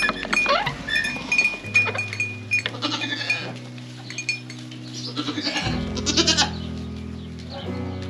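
Goats bleating, with a loud bleat about six seconds in, over soft background music with held chords that change every few seconds.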